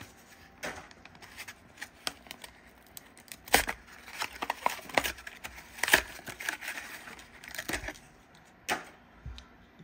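Cardboard backing card and clear plastic blister of a Hot Wheels pack being torn open by hand, giving irregular crackles and sharp clicks.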